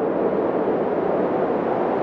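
Wind blowing sound effect: a steady, low rushing noise with no gusts or whistling tones, holding an even level.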